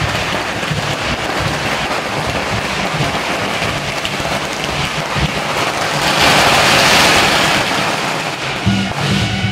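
A long string of firecrackers going off in a dense, continuous crackle, loudest about six to seven seconds in.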